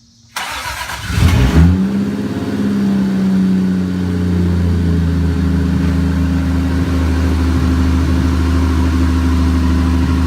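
Toyota 7M-GTE turbocharged inline-six cranking on the starter for about a second, catching with a brief rev flare, then settling into a steady idle. The owner says it has a vacuum leak he has yet to fix.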